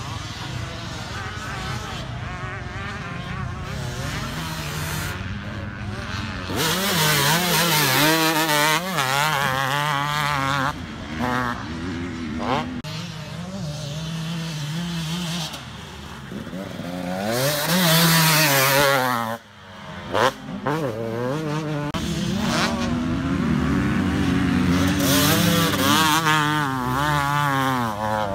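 Motocross bikes running on the track, the engine note repeatedly rising and falling with the throttle. It swells loudest as bikes pass at about 8 seconds, about 18 seconds and near the end, and drops out sharply for a moment a little after the second pass.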